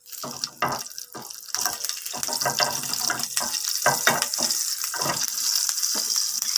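Green chillies frying in hot oil with nigella seeds in a pan. The sizzle builds about a second and a half in and is dotted with many small pops and crackles.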